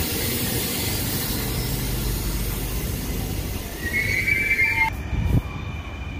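NS passenger train running past close by with a steady low rumble. About four seconds in, a high squeal from the train lasts about a second, followed by a short knock.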